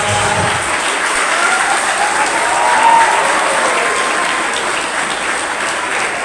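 Audience applauding just after the music stops, with a voice or two calling out over the clapping.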